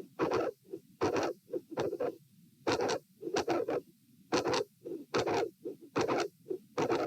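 Heartbeat through a stethoscope at chest position A, each beat a loud, harsh, scratchy sound recurring a little more often than once a second. The uploader takes it for a very loud mid-to-late systolic sound with a murmur at the second heart sound, an aortic vascular click from a dilated aortic root.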